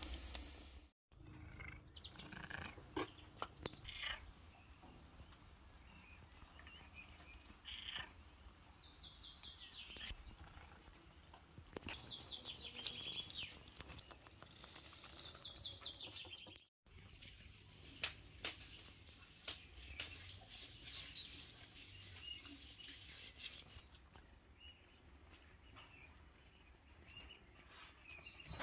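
Faint birdsong: scattered high chirps and a few rapid trills, with occasional light clicks and two brief gaps where the sound drops out entirely.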